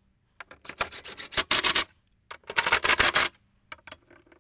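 Cordless power driver spinning a socket to run in the bolts of a spare tire relocation bracket on a Jeep tailgate. It goes in two spells of short trigger pulls, each about a second long.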